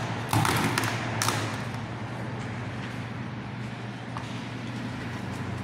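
Large kitchen knife cutting through the shell of a cooked lobster, two short crunches in the first second or so, over a steady low hum.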